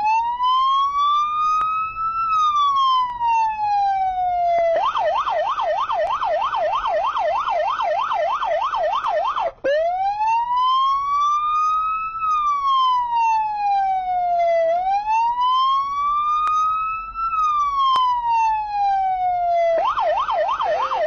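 Police car siren, loud, alternating between a slow wail that rises and falls over several seconds and a fast yelp at about three cycles a second. It yelps from about five seconds in to about ten, goes back to the wail, and yelps again near the end.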